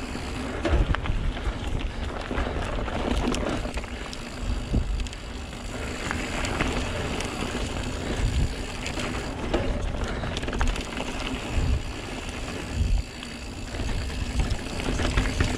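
Santa Cruz Megatower mountain bike ridden fast down a dirt and gravel singletrack: tyres running over the dirt, and the bike knocking and rattling over bumps. Wind noise on the camera's microphone.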